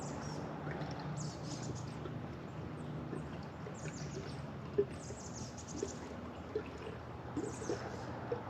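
Two-stroke oil being poured into a gas can to mix chainsaw fuel: brief splashing sounds and a few light knocks, over a steady low hum.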